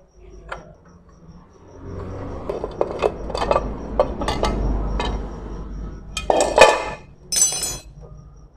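Metal clinks and clatter as the magneto cover is taken off a Honda CG125 engine, with its bolts and tools knocking against it. A run of light clinks comes from about two seconds in, then two louder clanks near the end, the second one ringing.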